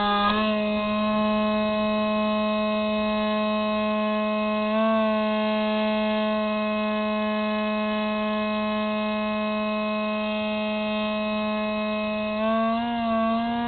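Hubsan Spyhawk RC plane's electric motor and propeller whining steadily, picked up by the onboard camera. The pitch wobbles briefly about five seconds in and steps slightly higher near the end.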